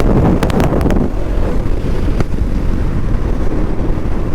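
Wind buffeting the microphone while riding a motorcycle, with a steady low rumble of the bike and road beneath and a few sharp clicks in the first second.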